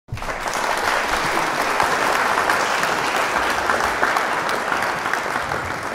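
Crowd applause, many hands clapping densely; it starts abruptly and slowly fades toward the end.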